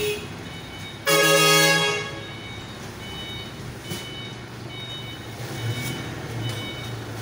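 A truck's horn gives one short blast about a second in, with a truck engine running and a reversing alarm beeping at intervals.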